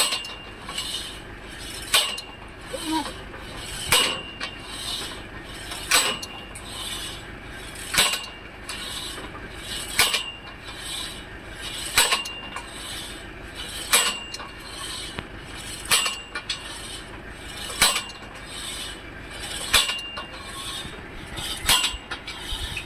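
Borewell drilling rig at work: a sharp metallic clank about every two seconds, each ringing briefly, over a steady rasping mechanical rhythm.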